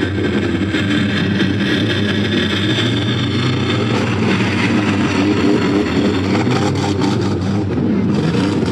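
Several demolition derby cars' engines running and revving, their pitch rising and falling as they push and collide, with sharp knocks toward the end.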